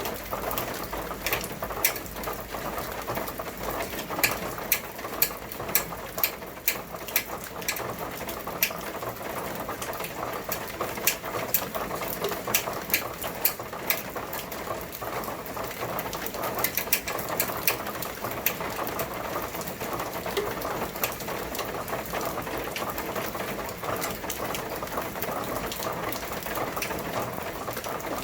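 Rain falling, a steady hiss with many sharp, irregular drip taps on a hard surface, several a second at times.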